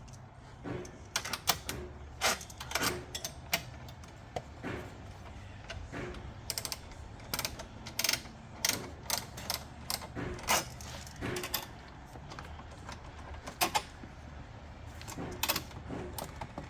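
Ratchet wrench clicking in short, irregular strokes as it tightens the battery hold-down nuts. It has room for only about one click of swing per stroke, over a steady low hum.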